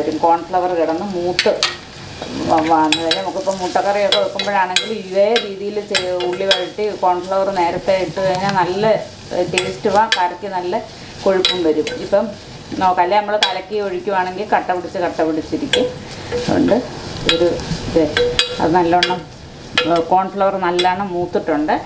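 Metal ladle stirring sliced onions and curry leaves frying in oil in a metal pan: repeated metal-on-metal scraping and clinks over a sizzle, in bouts with brief pauses between them.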